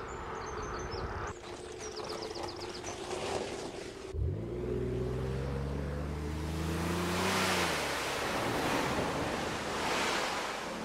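Birds chirping, then about four seconds in the Gibbs Aquada amphibious car's V6 engine starts up and revs, rising in pitch for a few seconds before cutting off. A loud rush of churning water follows as the car ploughs into the lake.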